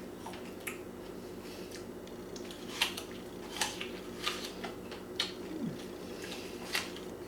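Someone biting and chewing a crisp raw apple: a handful of sharp crunches spread over the middle and later seconds, over a steady low hum.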